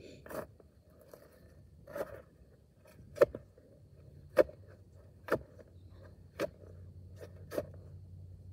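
Steel shovel blade chopping and stabbing into hard clay soil, about eight sharp strikes roughly a second apart.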